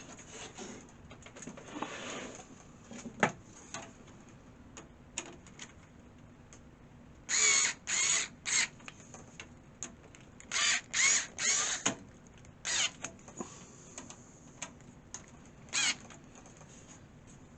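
Case fan being screwed into a PC case by hand: small clicks and knocks of the fan and screwdriver against the case, then short squeaky scrapes of screws turning into the fan's screw holes, three in quick succession twice, with a couple more near the end.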